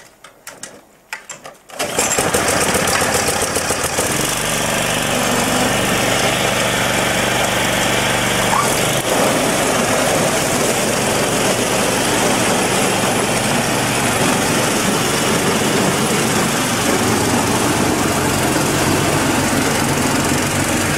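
The small engine of a MARKO tiller fitted with a belt-driven snow-blower attachment starts up about two seconds in, then runs steadily and loudly while the blower throws snow.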